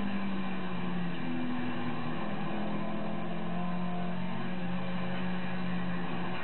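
Toyota 2T-G twin-cam four-cylinder engine running under power, heard from inside the car. Its note holds fairly steady, with small rises and dips in pitch.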